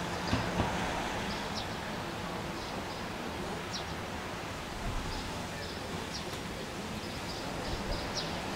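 Steady outdoor background noise with scattered short, high chirps through it. Two soft bumps come just after the start.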